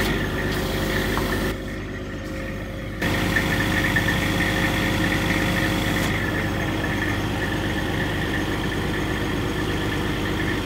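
Crane truck's engine running steadily at idle while its hydraulic crane holds a concrete septic tank aloft. A high steady whine sits over the engine, and the sound drops briefly about a second and a half in.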